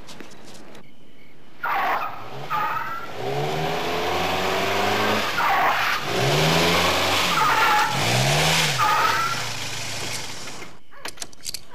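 Volkswagen Rabbit hatchback driven hard and erratically: tyres squealing and skidding again and again while the engine revs up and falls back several times. It starts suddenly about two seconds in and stops abruptly about a second before the end.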